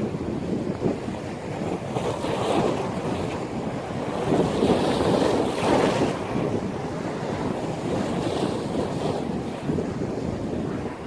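Rough sea surf churning and breaking while strong storm wind buffets the microphone, swelling louder for a couple of seconds about halfway through.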